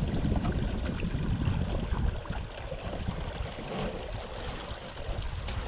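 Wind buffeting the microphone with a low, uneven rumble, over the wash of river water moving past a small drifting boat.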